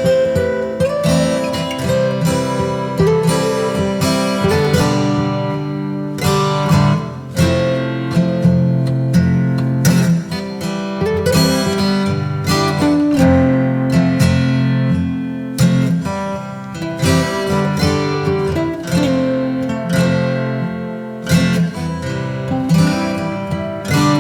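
Acoustic guitar music with plucked and strummed notes.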